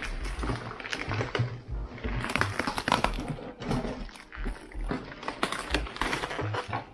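Cardboard box flaps and plastic bubble wrap being handled, with irregular crinkling, rustling and scraping as a bubble-wrapped item is lifted out of the box.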